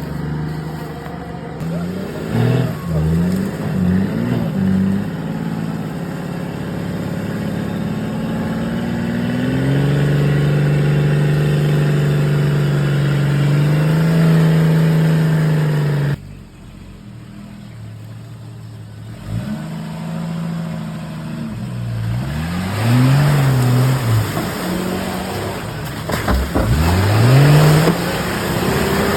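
Off-road 4x4 engine revving repeatedly, its pitch climbing and falling with the throttle, holding a steady higher note for several seconds midway. It drops away suddenly about halfway through, and the revving picks up again a few seconds later.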